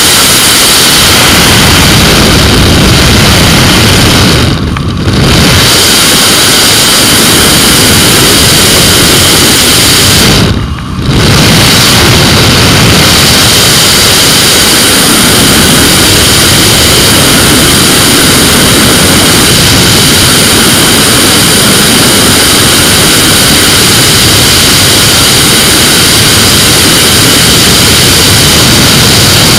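Wind rush and engine noise of a flexwing microlight in flight on approach, loud on the camera microphone. The noise dips briefly twice, about five and eleven seconds in.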